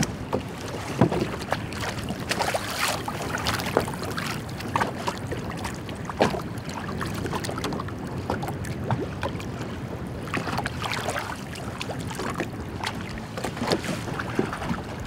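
Wind-driven lake waves lapping and slapping against a boat's hull, with irregular small splashes at the side of the boat and wind buffeting the microphone.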